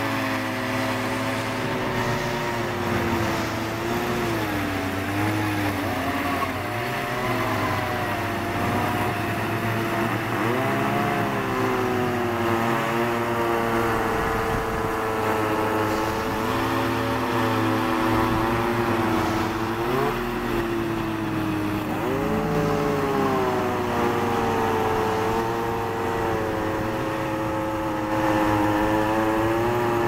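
Gas-powered ice auger engine running under load as it drills through river ice, its pitch repeatedly sagging and recovering as the bit bites into the ice.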